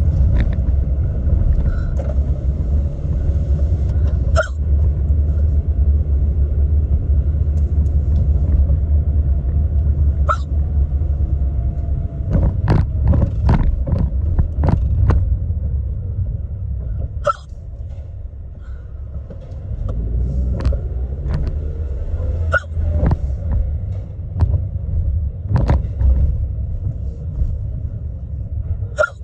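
A woman hiccupping, deep hiccups at irregular intervals, several coming in quick succession about halfway through, over the steady low rumble of a car's road noise inside the cabin.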